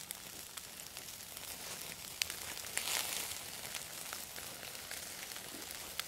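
Wood fire burning under an ear of corn roasting in its husk: a steady hiss with scattered sharp crackles and pops, swelling into a brief louder hiss about halfway through.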